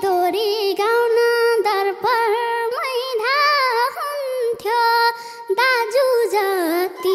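A young girl singing a Nepali folk-song melody into a microphone in a high voice, with many ornamented slides between notes and short breaks between phrases; no drums play under her.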